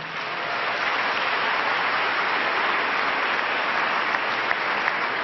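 Audience applauding, swelling over about the first second and then holding steady.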